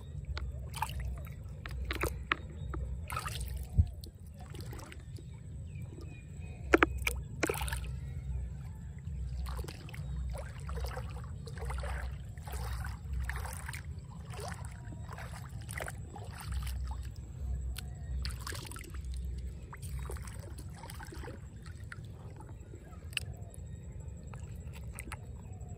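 A hand sloshing and splashing in shallow muddy water among grass, feeling in the mud for field snails, with irregular small splashes. There are two sharp clicks, about 4 and 7 seconds in, and a low steady rumble underneath.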